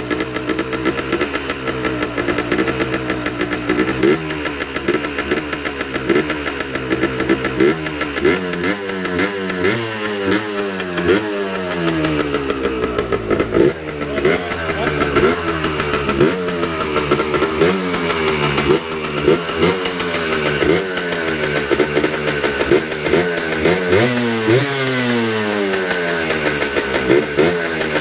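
Freshly rebuilt Yamaha Blaster 200's two-stroke single-cylinder engine running and being revved up and down over and over, its pitch climbing and dropping every second or two.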